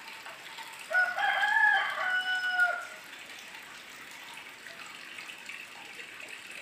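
A rooster crowing once: a single call of about two seconds, starting about a second in.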